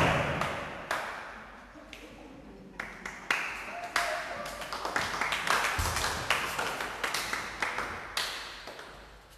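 Ensemble players making scattered, irregular taps and knocks on their instruments, each strike sharp with a short ring. A louder sound dies away over the first two seconds, and a brief held tone sounds about three and a half seconds in.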